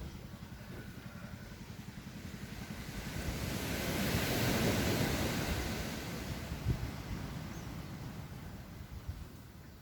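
Ocean surf: a wave breaks and washes in, swelling to its loudest about halfway through and then fading, over a steady low rumble.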